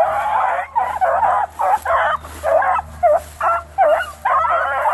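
Several dogs yelping and baying in quick, overlapping cries, about a dozen in a few seconds, many of them sliding up or down in pitch.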